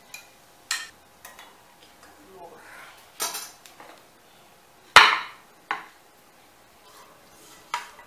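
Kitchen utensils and dishes clinking and knocking: a series of sharp clatters, the loudest one a little past halfway through.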